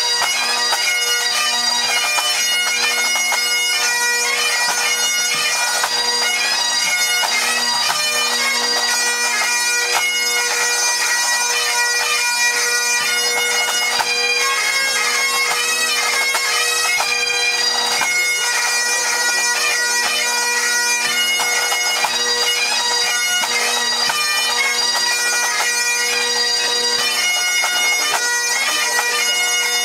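A full pipe band playing part of a march, strathspey and reel set: massed Great Highland bagpipes, their steady drones under the chanter melody, with the drum corps of snare, tenor and bass drums.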